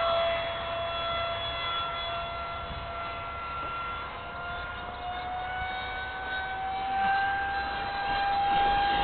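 JS1400 electric ducted fan on a 4S battery, whining steadily as the RC jet flies. Its pitch sags slightly in the middle and then rises a little in the second half as the fan speeds up.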